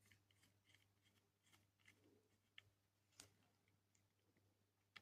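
Near silence with faint, scattered small clicks and taps from the plastic parts of a small robot kit being handled as a leg is fitted.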